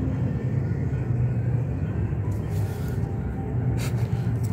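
Steady low rumble, with two short hissy noise bursts about two and a half and nearly four seconds in.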